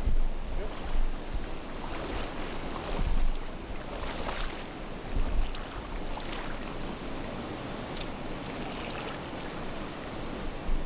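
Shallow water splashing and sloshing a few times, over a steady wash of water, with wind buffeting the microphone in gusts.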